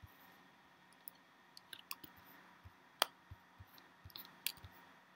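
Irregular, faint clicking of a computer mouse, a dozen or so sharp clicks with the loudest about three seconds in.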